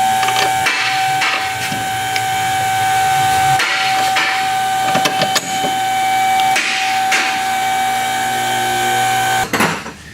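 A steady, high mechanical whine over a hiss, with short clicks and rustles. It breaks off briefly three times and stops near the end.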